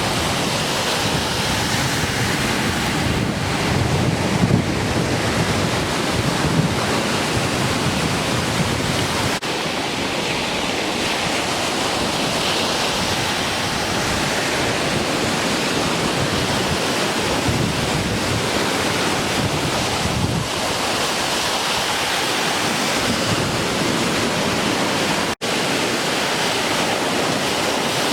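Ocean surf washing in steadily, with gusts of wind buffeting the microphone. The sound drops out briefly twice, about nine seconds in and near the end.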